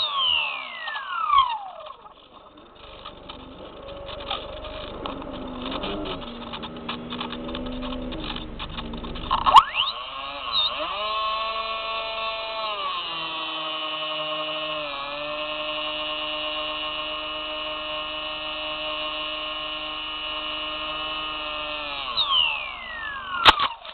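Small RC airplane's electric motor and propeller, heard from on board: the whine winds down at the start, leaving several seconds of wind noise while it glides, then spools back up about ten seconds in, holds a steady pitch with small throttle changes, and winds down again near the end.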